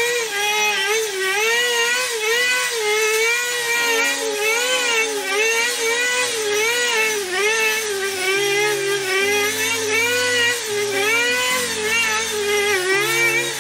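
String trimmer whining as it cuts thick, long, wet grass. Its pitch rises and falls constantly as the line loads up in the grass and frees again. Quieter background music with a stepped bass line comes in about four seconds in.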